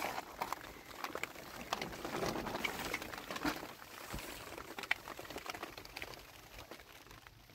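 Rain patters on the plastic sheeting stretched over a tent, as scattered sharp ticks of drops over a soft hiss, a little louder between about two and three and a half seconds in.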